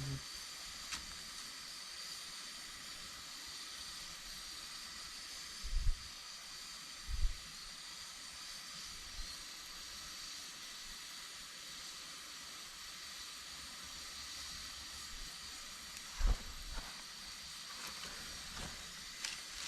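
Campfire burning with a steady hiss and sizzle, with a few faint crackles. There are short low thumps about six seconds in, again a second later, and once more near the end.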